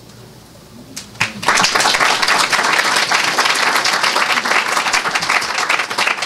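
Audience applauding: quiet for about a second, a couple of single claps, then steady clapping from the whole room.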